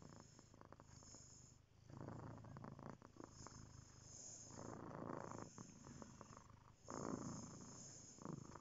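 A black-and-white domestic cat purring: a low, continuous rumble that grows louder in stretches every couple of seconds.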